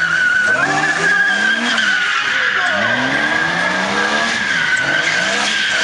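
BMW E30 drifting: its rear tyres squeal steadily on the tarmac while the engine revs climb and drop again and again as the throttle is worked through the slide.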